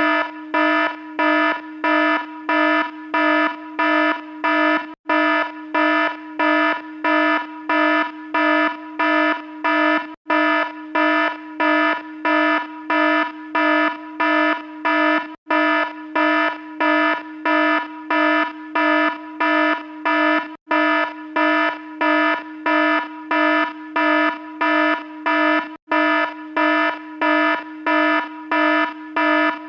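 Alarm sounding a low, pitched beep that pulses evenly about twice a second, with a brief break about every five seconds.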